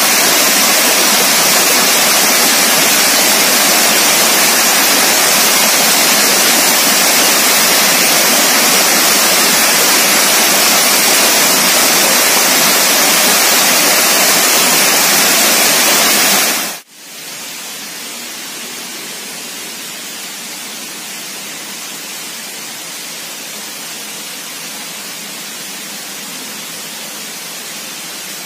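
Water pouring over a small concrete weir in an irrigation channel, a loud steady rushing. About two-thirds of the way through it cuts off abruptly, leaving a much quieter steady hiss.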